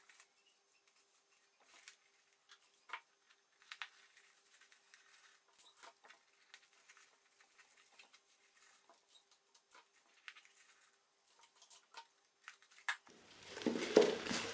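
Faint, scattered rustles and crinkles of crepe paper and paper-cone handling, with short soft clicks; a louder sound begins near the end.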